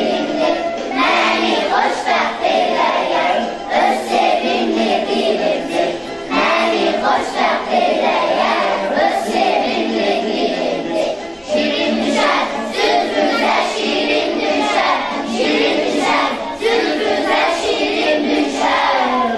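Children's choir singing together, with a brief break about halfway through.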